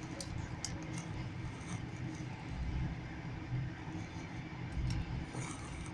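Passenger train running, its wheels rumbling steadily on the rails as heard from inside the carriage, with a few faint clicks.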